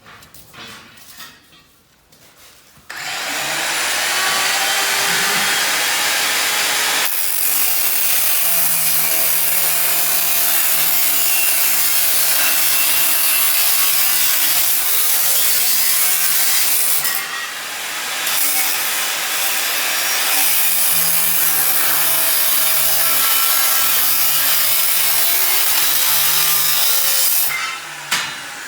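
Angle grinder cutting through steel stock, starting about three seconds in and running under load, easing briefly about midway before cutting on; the motor stops near the end.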